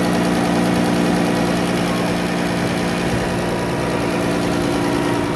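Chrysler 3.6-litre VVT V6 idling steadily, with the engine ticking noise that a car-enthusiast friend flagged as a concern on this rebuilt van.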